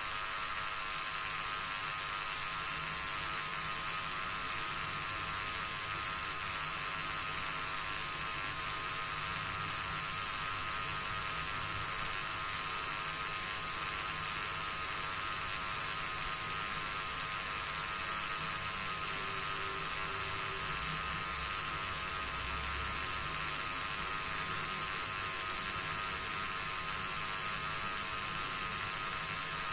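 A steady whirring hum with a high hiss over it, unchanging throughout.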